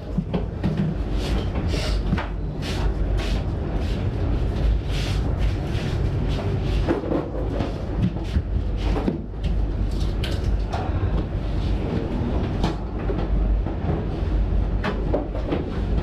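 Back massage in a barber's chair: irregular slaps and thuds of hands working the back and shoulders, over a steady low rumble.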